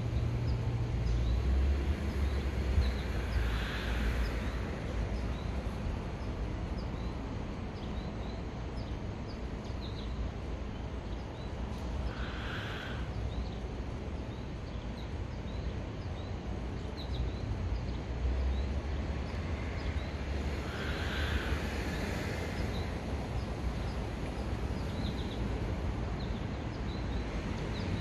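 Outdoor ambience: an uneven low rumble, small birds chirping steadily, and three louder calls, each lasting about a second and spaced about eight seconds apart.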